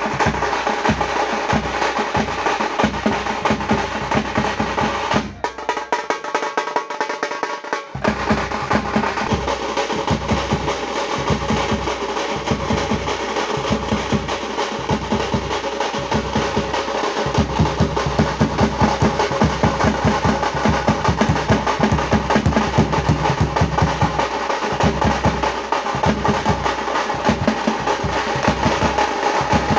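Street drum band playing fast, dense rhythms on stick-beaten side drums and a large bass drum. About five seconds in, the deep bass drum drops out for under three seconds, then comes back.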